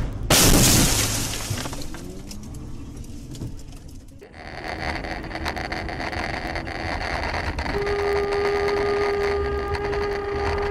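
Car crash impact: a sudden loud bang with crunching and breaking, dying away over about a second. Then steady road and engine noise inside a moving car's cabin, with a steady held tone of about three and a half seconds near the end.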